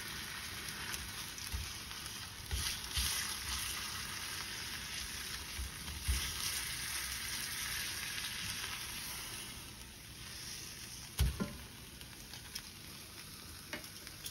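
A block of frozen ground beef sizzling in a stainless steel skillet as it is flipped with tongs, with a few low knocks from the handling. The sizzle quietens about ten seconds in, and there is one sharp knock about a second later.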